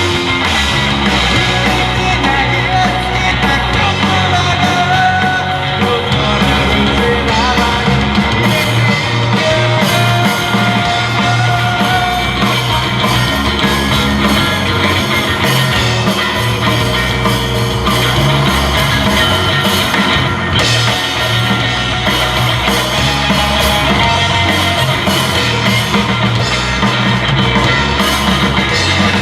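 Rock band playing live, loud and steady without a break.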